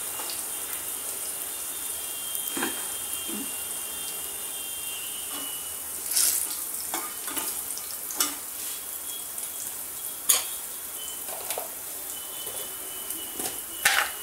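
Mustard seeds, cumin, green chillies and dried red chillies sizzling steadily in hot oil in an aluminium kadai on a low flame. A steel ladle stirs them, clinking against the pan a few times.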